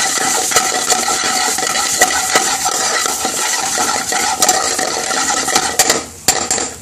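Metal spoon clattering and scraping against an aluminium frying pan as mixed vegetables are tossed and stirred in it, with frying sizzle underneath. The clatter stops near the end.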